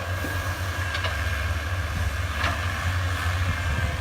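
Komatsu excavator's diesel engine running steadily, with a steady high whine over the low rumble and two light clicks.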